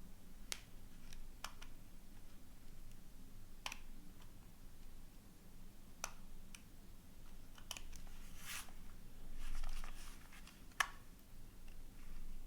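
Scattered small clicks and short rustles, irregular and a second or more apart, of a phone and its packaging being handled.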